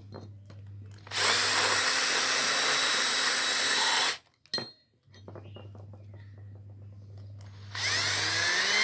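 A handheld power tool spinning a rotary burr, run twice for about three seconds each time. Each run starts with a rising whine as it spins up, and the second run is still going at the end.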